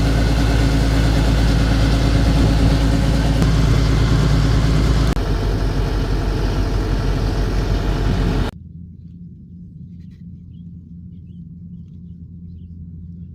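Farm harvesting machinery engine running steadily and loud. The sound changes abruptly about five seconds in, then drops suddenly about eight and a half seconds in to a quieter, muffled low hum.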